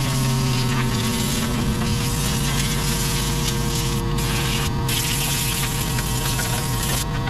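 Air compressor running: a steady buzzing hum with a low drone that does not change.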